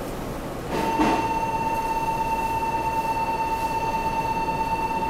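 Interior running sound of a Meitetsu 3700 series electric train: wheel and rail noise, then about a second in the level steps up and a steady high whine sets in and holds. This is the GTO-VVVF traction inverter taking power.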